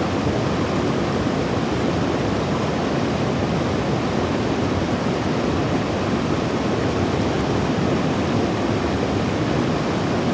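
A shallow rocky stream rushing over stones: a steady, even rush of water.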